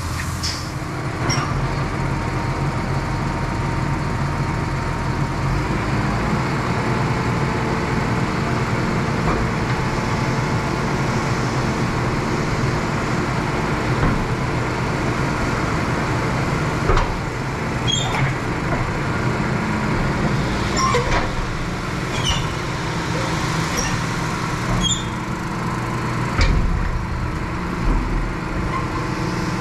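Farm tractor engine running steadily, with a few short clicks and squeaks over it in the second half.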